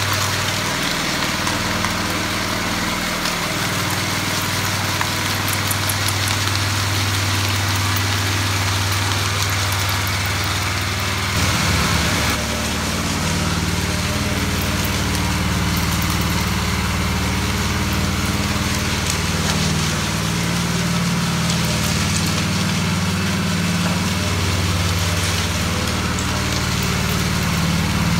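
Gas-engine walk-behind concrete power trowel running steadily as its blades work a fresh concrete floor. Its engine note changes about twelve seconds in and wavers after that.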